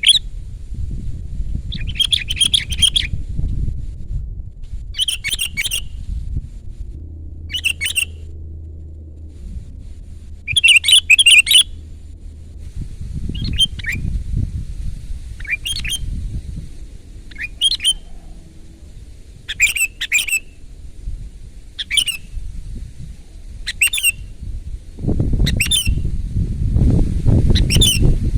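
Sooty-headed bulbul (kutilang) singing loud, short, bubbly phrases, one about every two seconds. A low rumble of background noise runs underneath and grows heavier near the end.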